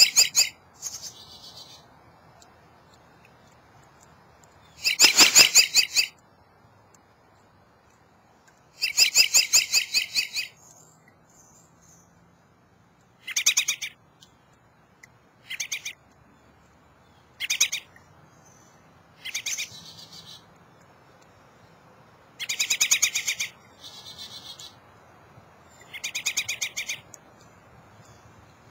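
American robin singing: a string of short, rapid phrases a few seconds apart, some longer and louder than others.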